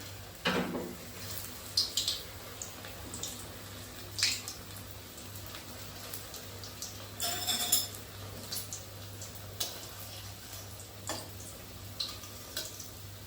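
Rolls frying in oil in a kadai on a low flame, a steady soft sizzle, with scattered sharp clinks and taps and a louder burst of spitting about seven seconds in.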